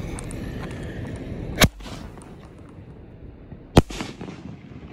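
A Brothers Pyrotechnics 'Unmatched' 5-inch canister shell firework: a sharp bang about a second and a half in as the lift charge fires it from its mortar tube, then a second, louder bang about two seconds later as the shell bursts in the air.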